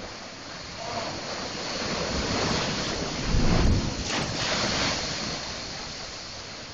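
Atlantic surf surging into the rocky chasm of Thunder Hole and pouring back off the rocks, a churning roar. It swells to a deep, heavy surge about halfway through, then eases.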